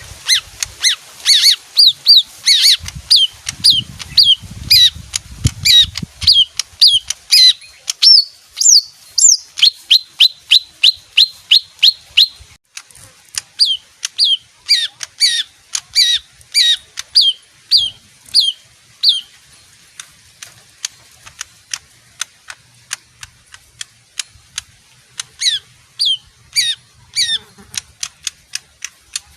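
Leafbird singing: a fast series of sharp whistled notes that sweep downward, about three to four a second, breaking into a run of quicker clipped notes, then pausing for several seconds before a few more near the end. A low rumble sounds under the song early on.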